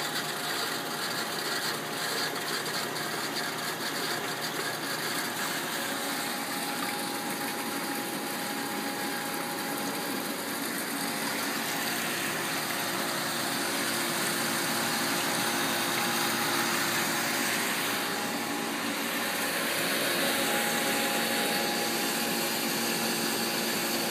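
Sodick AP500 wire-type EDM machine running: a steady whir from its pumps and motors with a couple of faint steady whines above it, getting a little louder in the second half.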